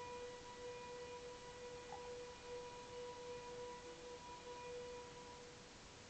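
Faint, steady horn-like tone with a few higher overtones, wavering slightly and fading out about five and a half seconds in. It is one of the strange trumpet-like sky sounds that the recordist cannot explain.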